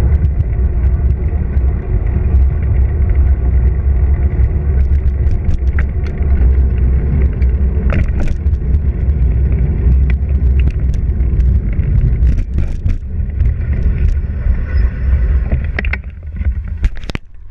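Wind buffeting a bicycle-mounted camera's microphone over the rumble of tyres rolling on asphalt, with scattered clicks and rattles from the bike over cracked pavement. The rumble drops away near the end as the bike slows.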